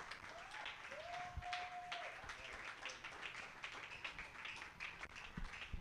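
Faint, scattered clapping from a congregation, with a faint held tone a little after one second in.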